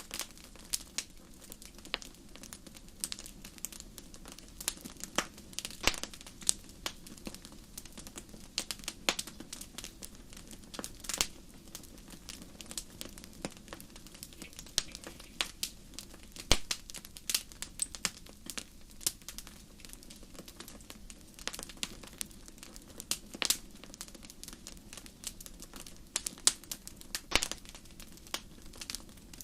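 Wood fire crackling in a fireplace: irregular sharp pops and snaps, many each second, over a faint steady low rumble.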